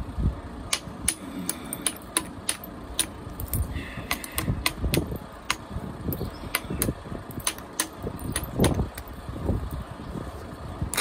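Stone knapping: a copper-tipped flaker pressing small flakes off the edge of a thin stone blade, giving sharp little clicks irregularly, about one or two a second. Between them come duller rubbing and handling knocks of the hands and tool on the leather pad.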